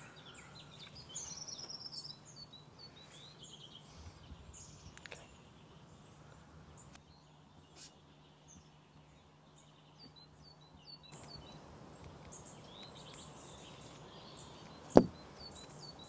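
Small songbirds chirping: repeated short high notes and quick falling whistles over a faint low hum. There is one sharp knock about a second before the end.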